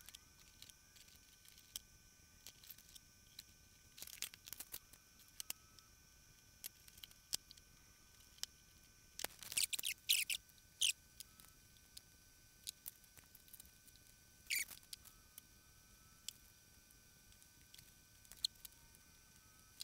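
Scattered small clicks, ticks and scrapes of hands working on an Avid SC48 mixing console's faders and their wiring connectors, with a denser run of louder clicks and scrapes about ten seconds in.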